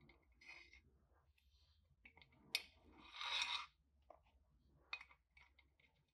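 Small metal parts clinking and scraping as a flat steel ring and small pins are fitted by hand into a metal housing: a sharp clink about two and a half seconds in, then a short scrape, with lighter clicks afterwards.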